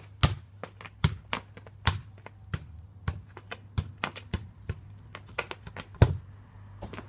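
Studded football boots clacking on patio paving stones as a player runs with a football and touches it, with a hard thud of a kick about six seconds in.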